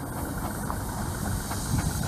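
Steam ploughing engine hauling a cable balance plough across the field by wire rope, heard as a steady rumble with a hiss over it.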